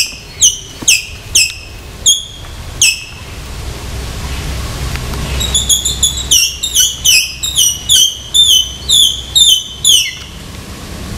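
A squirrel's repeated high-pitched barks, each note falling in pitch: a handful spaced about half a second apart, then a quicker run of a dozen or so from about five seconds in, stopping near ten seconds.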